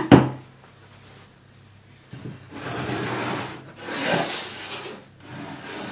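Kitchen utensil scraping and rubbing against a dish while pasta is served, in several scraping strokes from about two seconds in, after a couple of sharp knocks at the start.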